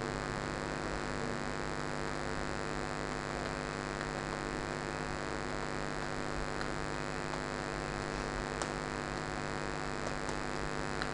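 Steady electrical mains hum with many overtones, picked up on the recording. Over it come a few faint, scattered keyboard clicks as numbers are typed.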